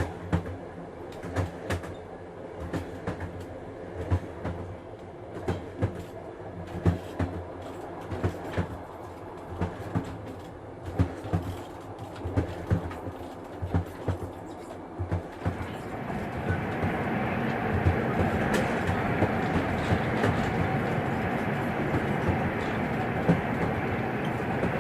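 Inside a moving train carriage: a steady running rumble with the wheels clicking over rail joints in a repeating clickety-clack. About two-thirds of the way through, the running noise grows louder and brighter, and the clicks become sparser.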